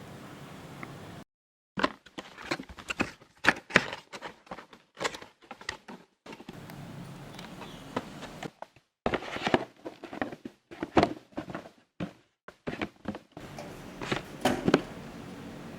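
Unboxing handling sounds: a string of short knocks, clicks and rustles as the grill machine's packaging and metal parts are lifted out and set down, broken by abrupt cuts to dead silence.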